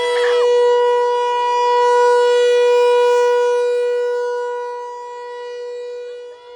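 Outdoor warning siren sounding a steady single-pitch wail during its scheduled noon test, swelling louder over the first few seconds and then fading.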